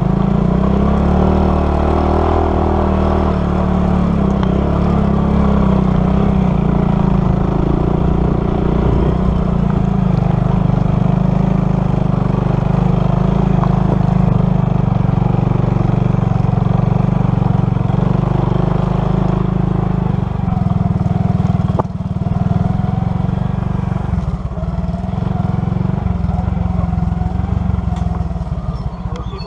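Motorcycle engine running steadily while riding, its pitch shifting now and then with the throttle, with a brief dip about 22 seconds in.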